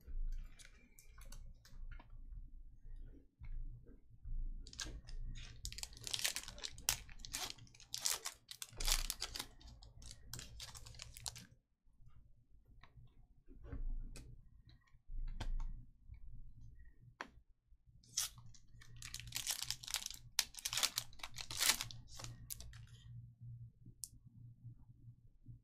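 Foil trading cards being handled: a dry rustling and clicking of card stock sliding against card stock. It comes in two bouts, one from about five seconds in to nearly twelve, and another from about eighteen to twenty-three seconds in.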